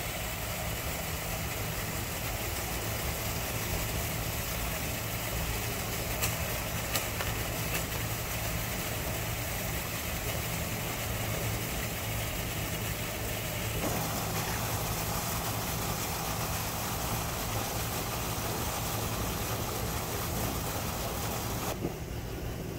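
Steady low mechanical hum under an even hiss, like a motor running continuously.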